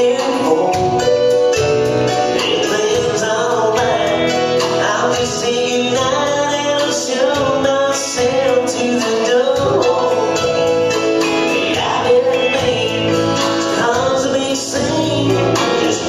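A man singing a country song live into a headset microphone, accompanied by acoustic guitar and other instruments.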